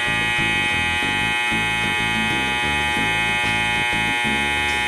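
Electronic alarm buzzer on a Kent USA SGS-1230SD automatic surface grinder, one steady tone lasting nearly five seconds that starts and cuts off abruptly, over background music.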